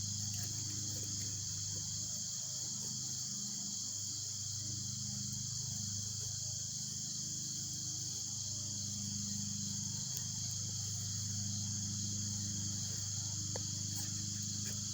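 Steady insect chorus, a continuous high trill, over a low hum.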